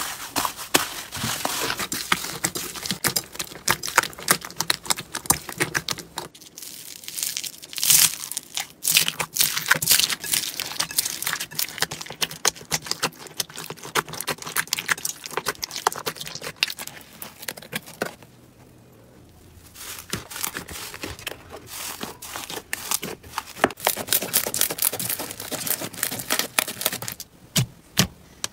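Slime being squeezed and kneaded by hand, some of it mixed with foam beads: dense, irregular crackling and popping, with a short quieter stretch about two-thirds through.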